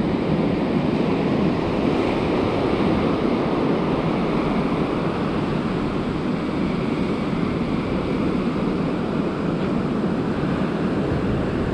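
Surf breaking on a sandy surf beach, a steady wash of waves with no distinct breaks.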